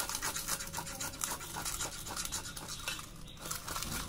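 Peeled ripe mango rubbed up and down a flat stainless steel hand grater, a quick run of scraping strokes at about four or five a second.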